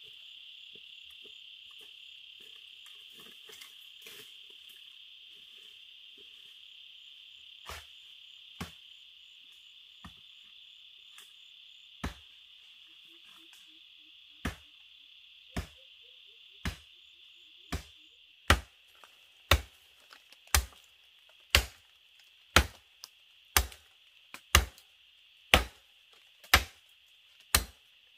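Insects chirring steadily at a high pitch, with sharp blows of a hand tool striking, sparse at first from about eight seconds in, then regular at about one a second and much louder in the last ten seconds.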